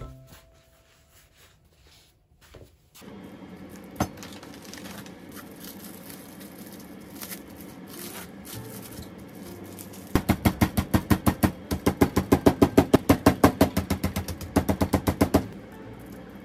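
Salt-and-pepper grinder worked over raw pork: a rapid, even run of clicks, about six a second, lasting about five seconds from roughly ten seconds in. Before it, plastic wrap rustles faintly as frozen pork cutlets are unwrapped.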